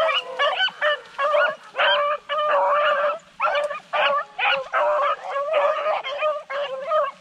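Beagle barking close by: a rapid, unbroken run of high, yelping barks, about two a second.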